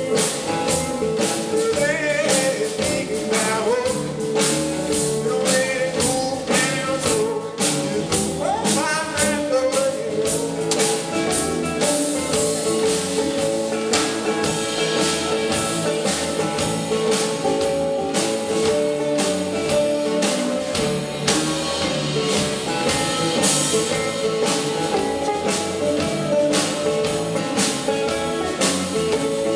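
Live blues band playing: a man singing over acoustic guitar, electric bass and drums. The voice is heard in roughly the first ten seconds, then the band plays on without singing, with a steady drumbeat.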